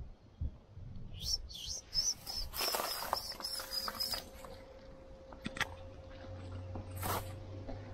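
Peafowl chick peeping from inside its cracked, partly peeled egg, showing it is still alive. First two high peeps, then a quick run of about nine, roughly four a second, followed by a few faint clicks from the shell being handled.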